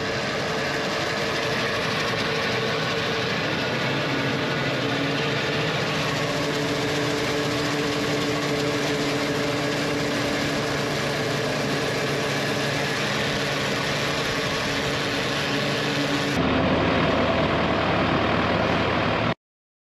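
Tractor engine and grain bag extractor running steadily while the extractor's auger pours grain into a semi trailer. About 16 seconds in it changes to a closer, louder engine sound from a tractor's seat, then cuts off abruptly near the end.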